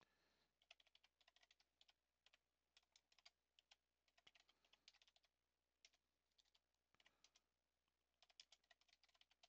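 Faint computer keyboard typing: irregular keystroke clicks in short runs.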